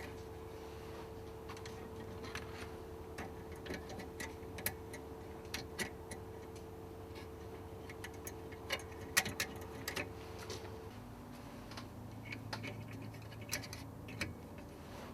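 Scattered light clicks and taps of hand work on cables and fuse-box fittings, over a steady hum that changes to a lower hum about eleven seconds in.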